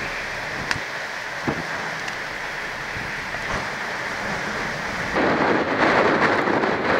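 Rough, stormy sea and wind making a steady rushing noise, with a few sharp ticks early on. About five seconds in it turns louder and heavier as surf churns against a rock cliff.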